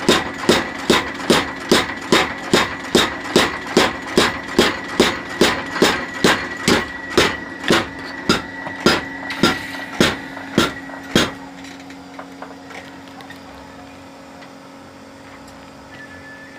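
Homemade mechanical power hammer striking red-hot leaf-spring steel in a steady rhythm, about two and a half ringing blows a second, as the spring is cut. The blows stop about eleven seconds in, and the machine's drive keeps running with a steady hum.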